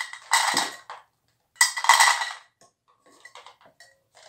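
Dry dog kibble rattling as it is poured from a small cup into plastic cups, in two short pours, one about half a second in and another about two seconds in.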